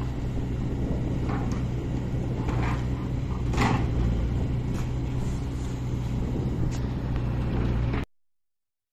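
Compact excavator's diesel engine running steadily while its arm tears into a timber log house, with wood cracking and crunching a few times, loudest about three and a half seconds in. All sound stops abruptly near the end.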